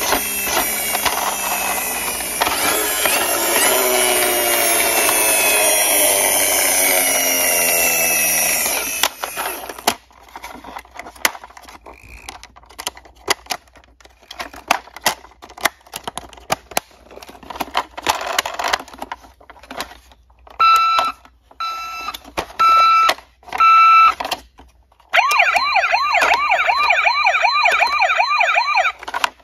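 Toy ambulance being handled: a loud whirring that slowly drops in pitch and stops about nine seconds in, then light plastic clicks and taps. Near the end its electronic sound unit gives four short beeps, then a fast warbling siren.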